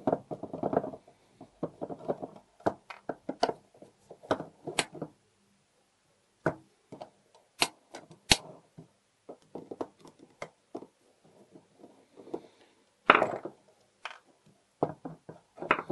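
Irregular taps, clicks and knocks of a screwdriver and fingers working the steel case and parts of a mortise lock on a wooden workbench. There are two sharp clicks about eight seconds in and a louder clatter about thirteen seconds in.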